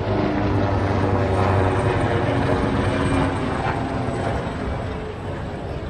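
A loud engine drone of a passing motor, swelling to its loudest about two seconds in and then easing off.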